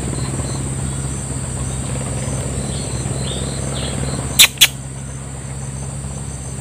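Steady insect chirring, with a steady low hum beneath it. Two sharp clicks come close together about four and a half seconds in.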